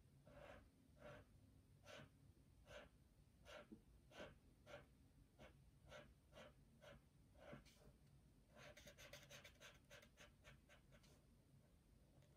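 Faint strokes of a brush-tip marker rubbing on paper while colouring in, about two a second, then a quicker run of short back-and-forth strokes about two-thirds of the way through.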